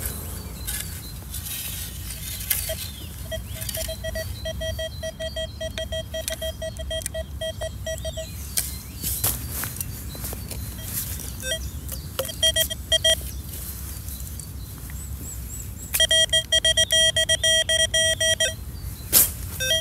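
Metal detector's audio tone giving a quick string of short beeps, all at one pitch, as the search coil sweeps over a target. It sounds in three spells: a long one from about three to eight seconds in, a brief one around twelve seconds, and another from about sixteen to eighteen and a half seconds.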